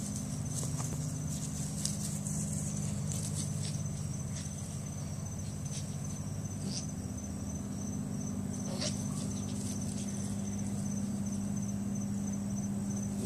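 Insect chorus of steady high-pitched trilling in two pitches, one finely pulsing, over a steady low hum, with a few faint scattered clicks.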